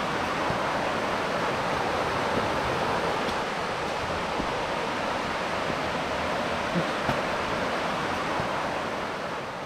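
Waterfall on a mountain creek rushing steadily: an even wash of falling water that eases slightly near the end.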